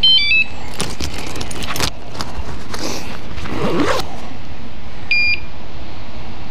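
E-bike alarm being armed from its key-fob remote: a quick run of stepped electronic chirps at several pitches, then one more short beep about five seconds in.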